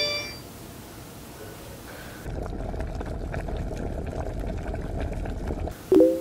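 Water bubbling and popping in a small stainless saucepan on an electric coil burner, cut in for about three seconds and cut off abruptly. It is framed by short electronic chimes: the tail of a phone notification chime at the very start, and a louder, lower chime near the end that is the loudest sound.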